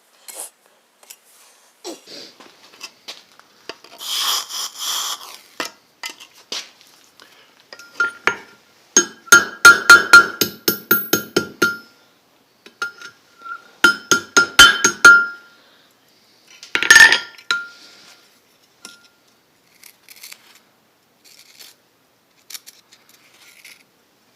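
Hammer striking hot steel on an anvil to forge the curl of an S hook: two runs of rapid blows a few seconds apart, each ringing with a clear metallic tone, among scattered lighter taps.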